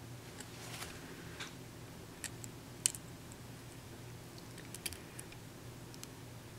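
Faint, irregular metal clicks and light scrapes as a pick and tension wrench work the pins in the keyway of a hand-held brass lock cylinder, one click sharper about three seconds in. A faint steady low hum sits underneath.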